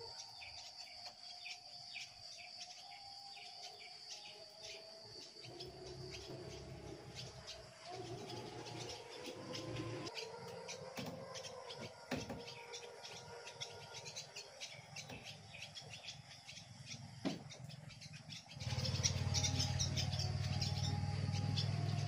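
Swallows twittering: many short, high chirps in quick succession. A loud, steady low hum comes in near the end.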